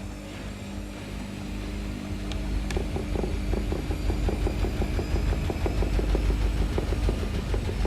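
Samsung WF-R1062 front-loading washing machine running: a steady motor hum, then two sharp clicks, after which a rapid, even rattle of the turning drum builds and the sound grows louder.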